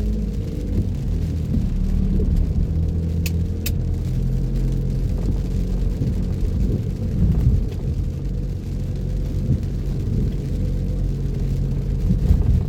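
Car driving on a wet road, heard as a steady low rumble of engine and tyres with shifting low hum. Two brief ticks sound about three and a half seconds in.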